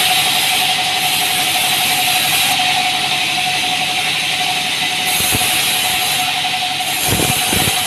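Band sawmill running with a steady whine while its blade saws lengthwise through a small log, with a hiss of cutting that comes and goes. A few low knocks in the second half, the loudest two close together near the end.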